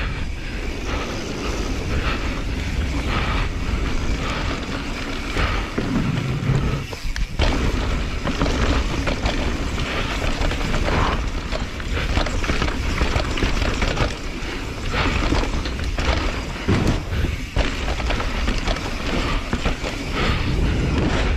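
Mountain bike ridden fast down a dirt trail: wind buffeting the microphone over tyres rolling on loose dirt, with frequent knocks and rattles from the bike over bumps.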